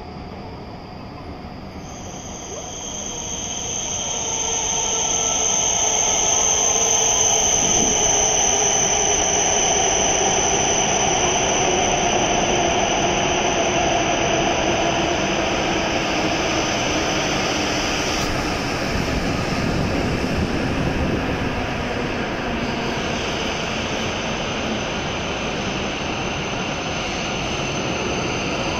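W7 series Shinkansen train pulling into the platform and slowing: a loud rush of the passing train with a high steady whine, and lower tones that slide down in pitch as it brakes. It swells over the first few seconds, then eases slightly.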